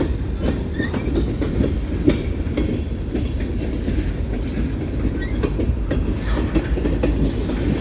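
Freight cars of a Union Pacific mixed freight train rolling past: a steady low rumble with frequent irregular clicks and clatter from the wheels on the rails.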